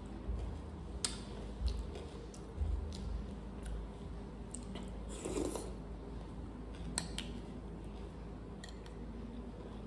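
Close-miked eating of chaat: a steel spoon clicks against glass bowls about half a dozen times as food is scooped, with chewing in between.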